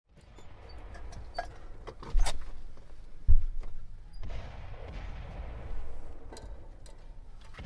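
Battlefield sound effects: a steady low rumble with scattered distant gunshot cracks and two heavy booms, about two and three seconds in.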